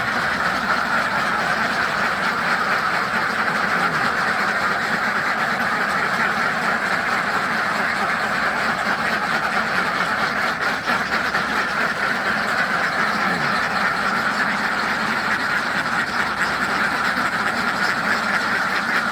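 A flock of domestic ducks quacking continuously, many calls overlapping into a steady, unbroken din.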